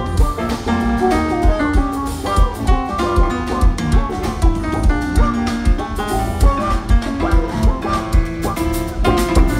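Live jazz-funk band playing: electric bass and keyboard lines over a drum kit, with a steady kick-drum pulse.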